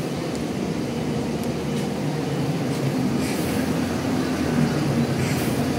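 A large bus's diesel engine running steadily, a low, even drone, with two short hisses about three seconds in and near the end.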